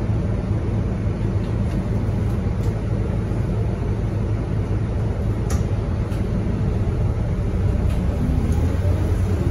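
Scania K230UB bus's rear-mounted five-cylinder diesel idling with a steady low hum, heard from inside the passenger cabin at the front.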